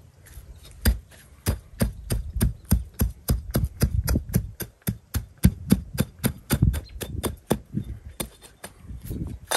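Edge of a clay brick tapped repeatedly into a bed of crushed gravel, tamping and levelling it: a quick run of knocks, about three to four a second, starting about a second in.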